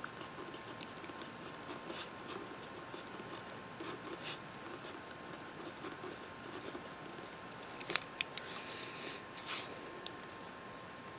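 Pen writing on lined spiral-notebook paper, close to the microphone: soft scratching strokes, with a few sharp clicks about eight seconds in. A faint steady hum sits underneath.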